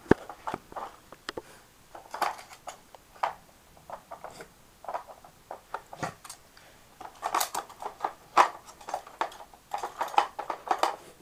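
Plastic dog puzzle feeder clicking and clattering as a Cavalier King Charles Spaniel noses at it, knocking its plastic bone pegs and sliding covers about in search of hidden treats; the clatter comes in irregular bursts, busiest near the middle and towards the end.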